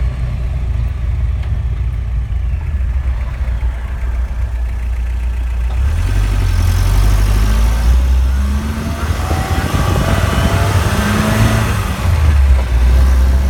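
Vehicle drivetrain noise while driving at highway speed: a steady low rumble that grows louder about six seconds in, with a tone that rises and falls over it. It is the noise that comes when coasting in neutral above 50 mph; the owner has ruled out the throwout bearing and does not know its cause.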